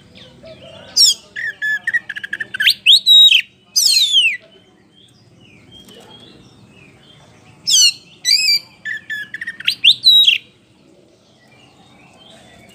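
Oriental magpie-robin (kacer poci) singing loudly in two phrases, about a second in and again about eight seconds in, each a string of quick rising and falling whistles and fast trilled notes.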